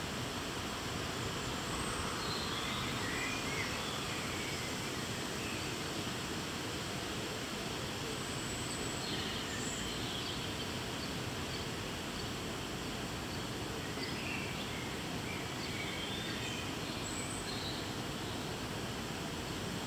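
Steady outdoor background hiss with faint, short bird chirps now and then: a few about two to three seconds in, more around ten seconds, and again near the end.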